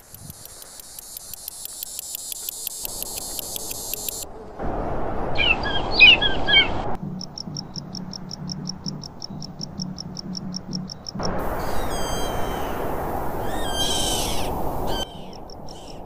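Field recordings of birds and insects, cut one after another: a fast, high ticking trill like a cricket's, then short chirping calls, then a rapid run of high pulses about seven a second, then song with sliding whistled notes.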